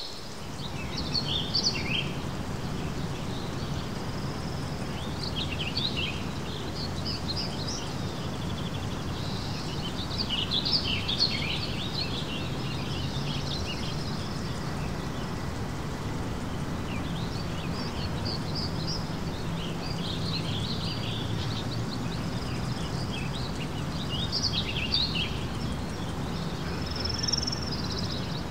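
Several birds singing and chirping, many short quick notes in rapid runs, over a steady low background rumble.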